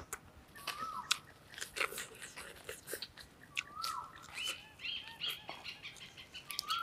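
A person chewing food close to the microphone, open-mouthed, with many quick wet smacking clicks throughout.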